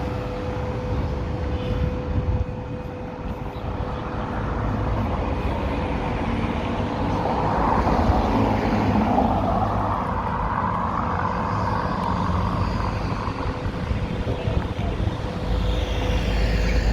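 Road traffic going by, with one vehicle swelling loudest around the middle. A thin steady whine from the camera gimbal's motor runs underneath.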